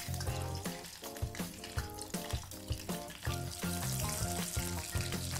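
Hot oil sizzling in a saucepan as sesame-coated onde-onde dough balls deep-fry on a low flame, with background music of short stepped notes over it.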